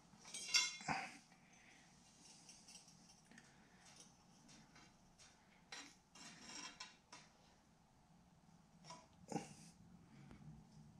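Light metallic clinks and scrapes as an aluminum spacer is hand-fitted against metal legs: the loudest clinks come about half a second in and again about nine seconds in, with softer scraping between.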